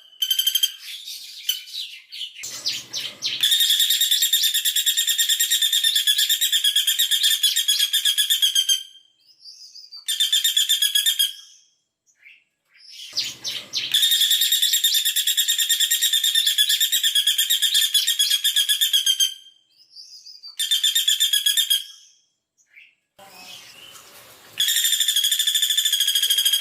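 Female caladi bawang calling in rapid, tightly packed trills of high repeated notes, the closely doubled 'shots' prized by bird keepers. The trills come in runs of about five seconds with short breaks between them.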